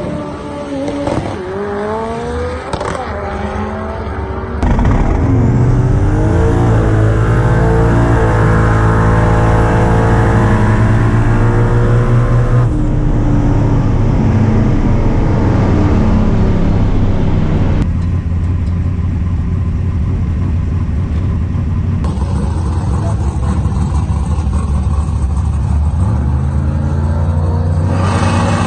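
Drag race car engines revving, then running at full throttle with the pitch climbing as the cars accelerate. The sound changes abruptly several times, as though switching between different runs.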